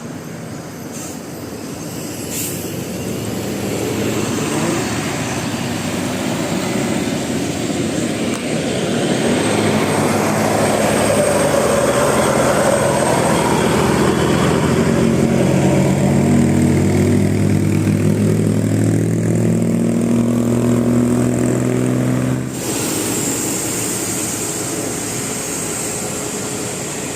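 A large bus's engine and tyre noise building as it approaches and passes close by, with a low engine drone swelling over several seconds. It cuts off abruptly about two-thirds of the way through into steadier, quieter traffic noise.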